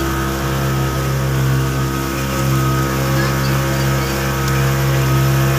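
Speedboat engine running steadily at speed, a constant low drone, with water rushing and splashing along the hull.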